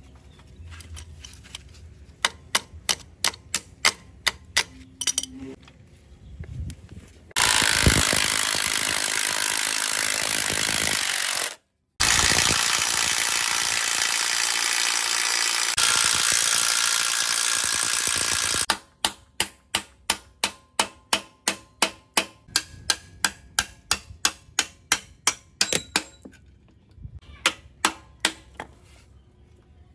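Workshop tool work: a run of sharp strikes about three a second, then a loud, steady power tool running for about eleven seconds, cut off for a moment partway through, then another run of strikes about three a second.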